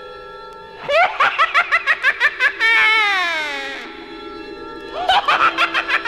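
High-pitched cackling laughter from a vintage haunted-house sound-effects record. A quick run of 'ha-ha' pulses gives way to one long note that slides down in pitch, and a second burst of cackling comes near the end, all over a steady drone of held eerie tones.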